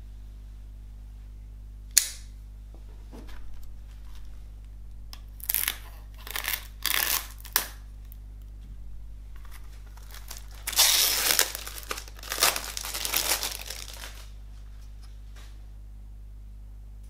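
Cellophane shrink wrap on a CD jewel case being torn and crinkled off. A sharp click comes about two seconds in, then short bursts of crinkling, and a longer stretch of tearing and crinkling near the middle.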